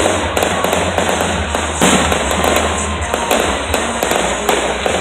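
Aerial fireworks going off: a dense crackle of many quick pops, with a louder bang a little under two seconds in.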